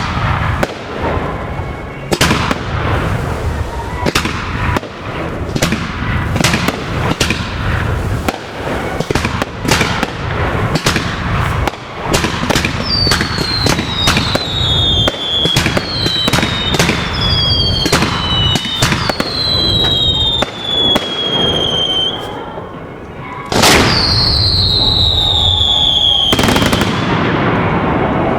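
Fireworks going off: a rapid, irregular string of sharp bangs and crackles. From about halfway, several whistling fireworks overlap the bangs, each whistle falling in pitch. Near the end one long, loud falling whistle leads into a dense rush of crackling.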